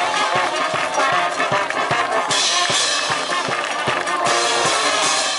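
Live brass band with sousaphone and horns playing a tune over a steady drum beat.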